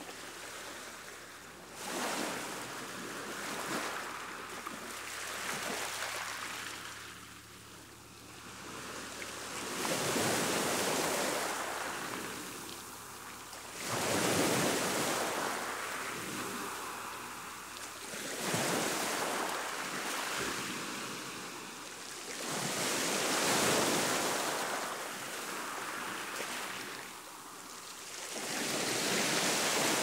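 Choppy sea washing up on a shore: the surf hisses in repeated surges, building and falling away every four to five seconds.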